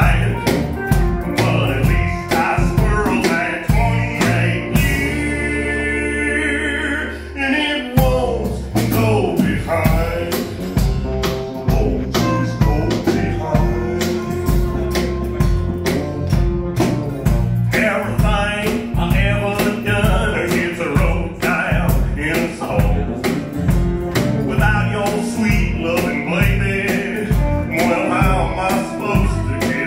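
Live country band playing: a drum kit keeps a steady beat under electric guitars, bass and keyboard. About five seconds in the drums drop out for a held chord of about three seconds, then the beat comes back.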